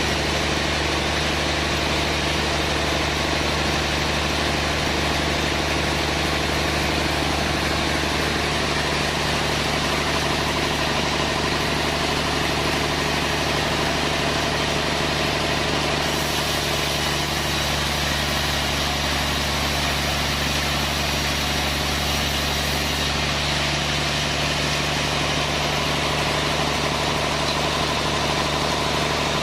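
Sawmill machinery running steadily, a continuous engine-like hum with a constant low drone and a faint rise in high hiss about halfway through.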